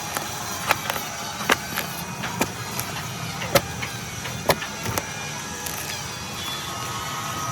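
A series of sharp knocks, irregular and roughly one a second, some louder than others, typical of wood being struck during woodworking.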